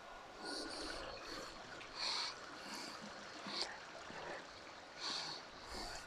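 Quiet outdoor ambience: a faint steady hiss with a few brief, soft high-pitched sounds every second or so.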